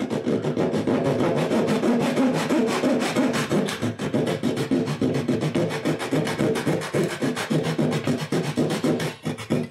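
Fine-toothed razor saw cutting into a small wooden dowel, a model ship's bowsprit, in quick back-and-forth strokes that stop just before the end.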